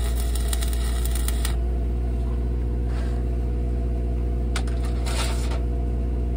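Stick-welding arc crackling as a 3/32" 7018 rod burns, cutting off about a second and a half in when the rod is spent. An engine-driven welder runs steadily underneath, and a few brief scrapes follow near the end as the stub is knocked out of the stinger and a new rod fitted.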